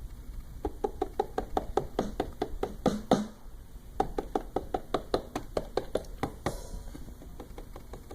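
Light finger taps on a Maschine MK2's drum pads, set to the hard 3 velocity curve, about four a second, with a few harder hits around three seconds in. The taps are registering and firing soft drum hits.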